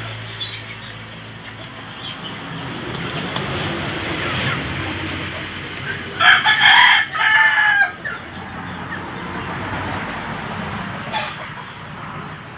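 A gamefowl rooster crows once, about six seconds in. The crow lasts just under two seconds, with a brief break partway through.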